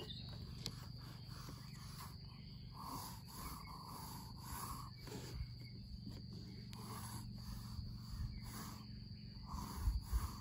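Pencil strokes scratching on drawing paper, a run of short strokes about two a second, over a steady high chirring of insects.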